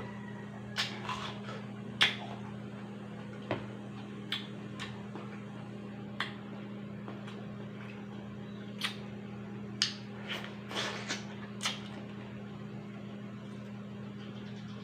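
Watermelon being bitten and chewed up close: about a dozen short, crisp, wet crunches and mouth sounds spaced irregularly, over a steady low hum.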